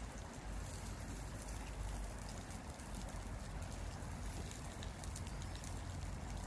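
Octopus and vegetables sizzling and crackling on a hot barbecue plate, with wind rumbling on the microphone.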